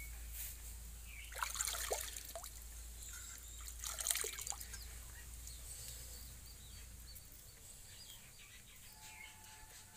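Water poured from a hand splashing and trickling into a plastic tub of water, in two short bursts: about a second and a half in and again about four seconds in.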